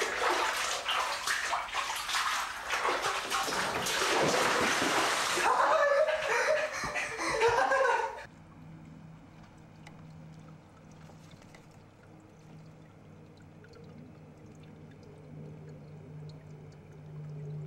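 Water running loudly into a bathtub, cutting off suddenly about eight seconds in. A faint, steady low hum follows.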